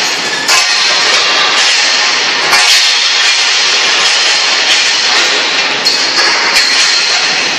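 Steel-tube packing and bundling line running: a steady loud hiss of machinery with several sharp metal clanks of steel tubes at uneven intervals.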